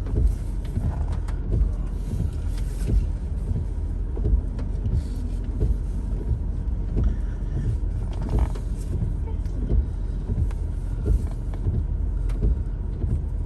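Car cabin noise: a steady low rumble of engine and road, with frequent short low thumps.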